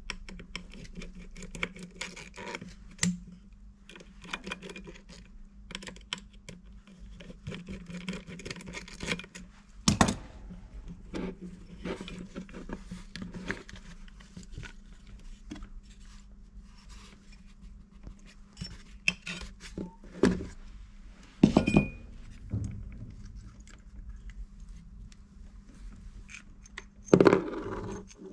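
Tools and small metal parts being handled on a workbench as a turntable's motor assembly is dismantled: scattered small clicks, taps and scrapes, with a few louder knocks about ten seconds in, around twenty-one seconds and near the end, over a faint steady low hum.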